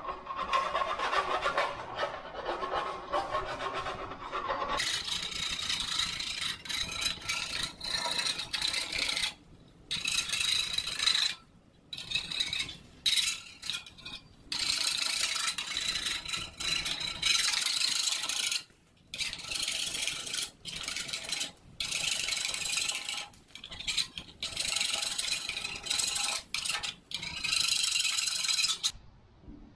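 Steel plastering trowel scraping wallpaper off a plastered wall: repeated rasping strokes with short pauses between them, starting about five seconds in.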